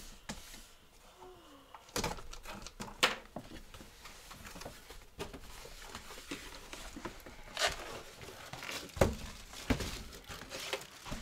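Cardboard shipping box being opened by hand: packing tape slit and torn, flaps pulled open, with cardboard scraping and several sharp knocks.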